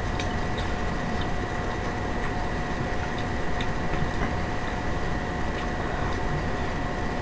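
Steady background hiss and hum with two constant high whine tones, and faint light ticks scattered about every half second.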